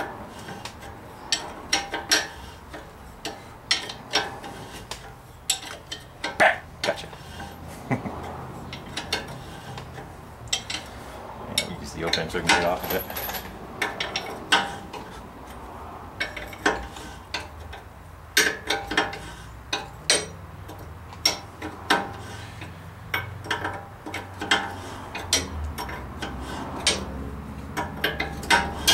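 Hand ratchet and wrench working a nut on a truck's front suspension: irregular metallic clicks and clinks throughout, with a few sharper clanks of steel tools against the suspension parts.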